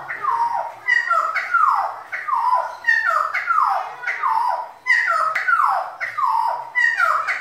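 Cucak timur songbird in continuous song: a rapid, unbroken run of whistled phrases, each sliding down in pitch, about two a second.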